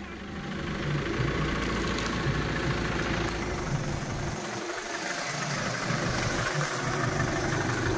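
Chevrolet Tavera SUV's turbodiesel engine idling steadily, the sound growing a little louder about half a second in.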